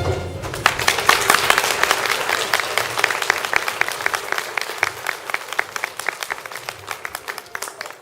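Audience applauding. The clapping thins out and fades away gradually.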